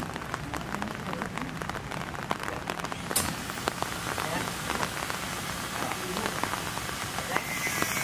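A steady hiss dense with small ticks and taps, a rain-like patter, with faint voices in it. A little after three seconds in, the hiss turns brighter and fuller.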